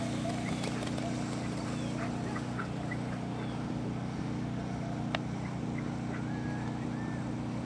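A motor running steadily with an even low hum, consistent with the drive of a lure coursing machine. A single sharp click comes about five seconds in.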